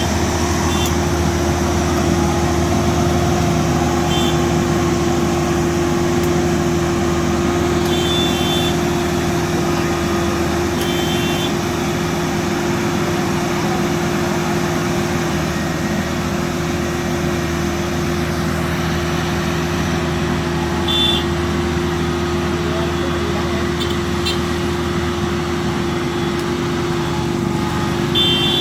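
Heavy diesel engine running steadily at constant speed, an even hum with no revving. Brief high tones sound every few seconds over it.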